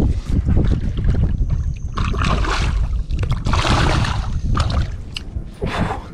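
A hooked boquita thrashing at the water's surface beside the boat as it is reeled in: two bursts of splashing, about two seconds in and again around four seconds in, over a steady low rumble.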